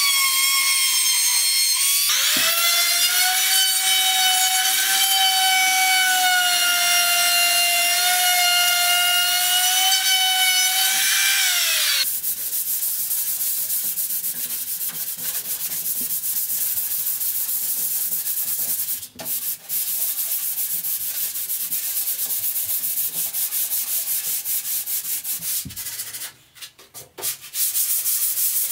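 A power tool's motor whining at a steady high pitch, dropping lower about two seconds in and spinning down after about twelve seconds. Then sanding on wood, a steady scratchy rubbing that pauses briefly twice.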